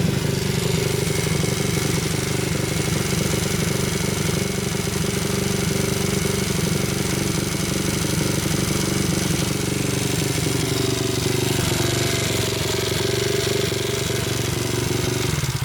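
Honda Monkey's small single-cylinder four-stroke engine running steadily, freshly rebuilt, then cutting off suddenly at the end. The owner judges that it sounds all right.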